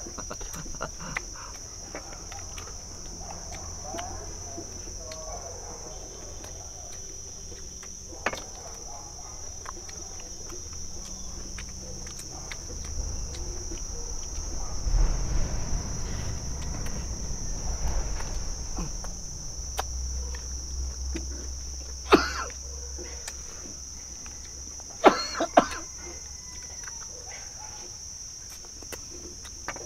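Insects chirring steadily in one high, unbroken tone. A few short, sharp sounds stand out, two of them close together near the end, with a low rumble in the middle.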